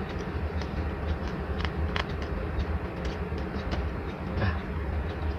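Steady low background rumble, with a few light clicks from the plastic body of a Mini 4WD model car being handled.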